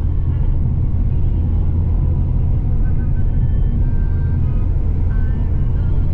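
Car driving at steady speed on a sealed road: a continuous low rumble of engine and tyre noise, heard from inside the cabin.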